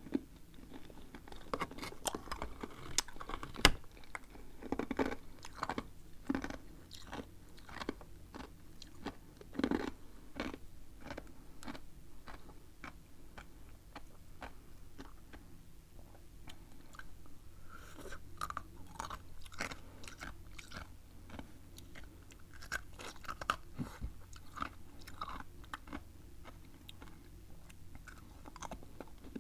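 A person crunching and chewing freezer ice close to the microphone: a dense, irregular run of sharp crunches with a few louder bites.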